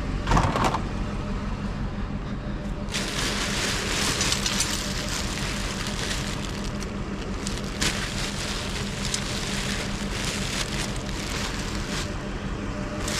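Hard plastic crackling and rustling as a toy Nerf gun is broken apart by hand for scrap, loudest from about three seconds in, over a steady low hum.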